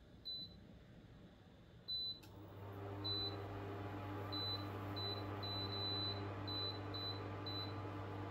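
An electric kitchen appliance's control panel beeping at button presses, about a dozen short high beeps, spaced out at first and then in a quicker run. About two and a half seconds in, the appliance switches on and runs with a steady hum.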